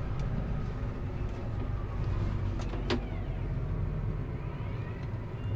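Tractor engine running steadily while spreading slurry, with a sharp click about three seconds in.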